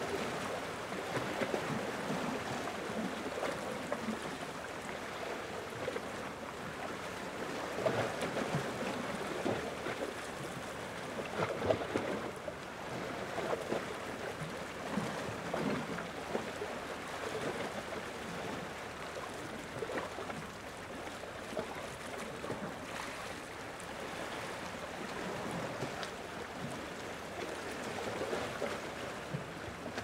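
Small ocean waves lapping and washing at the shoreline: a steady wash of water broken by a few irregular, louder splashes.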